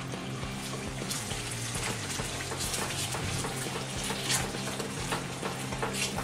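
Blended onion and cashew paste sizzling in hot oil in a kadhai while a spatula stirs and scrapes through it in repeated irregular strokes, the paste being fried (bhuna) as the base of a gravy.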